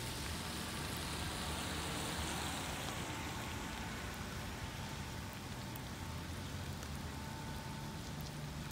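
Steady rain falling, a hiss that swells over the first few seconds and then eases, with a few faint ticks of drops.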